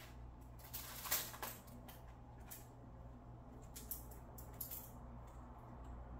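Soft handling sounds as gift items are picked up and moved: a few light taps and rustles, the loudest about a second in, over a low steady hum.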